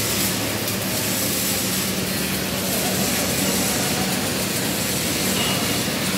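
Flux-cored arc welding arc crackling and hissing steadily, the welder running at about 120 amps and 21–22 volts, with a steady low hum underneath.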